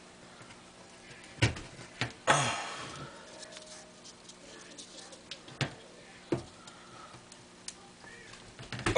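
A handful of sharp, irregular knocks and taps as crumpled junk-mail paper balls are handled and pushed down onto the nail points of a board. About two seconds in comes a louder, short sound that falls in pitch and fades, like a brief cry.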